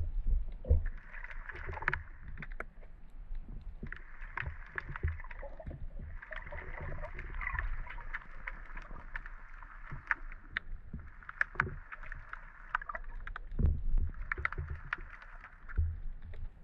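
Muffled sound of an action camera held underwater while snorkeling: a water hiss that swells and fades every few seconds, with scattered sharp clicks and low knocks from the camera being handled.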